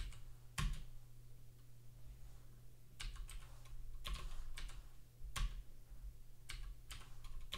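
Computer keyboard being typed on: scattered, irregular keystrokes, a few single taps and short pairs, with pauses between them.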